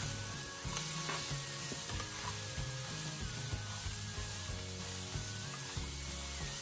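Sliced bell peppers, sugar snap peas and julienne carrots sizzling in oil in a nonstick frying pan while a spatula stirs them, with a few light scrapes. Soft background music with held notes plays underneath.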